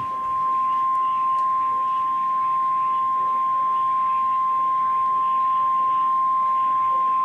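NOAA Weather Radio 1050 Hz warning alarm tone: one steady, unbroken high-pitched tone heard through a radio receiver over faint static hiss. It is the alert signal that announces a warning message is about to be broadcast.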